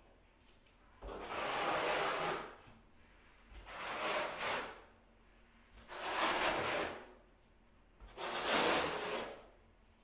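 Four long scraping strokes of a tile trowel dragged across the wall, each lasting about a second with short pauses between, as tile adhesive is spread.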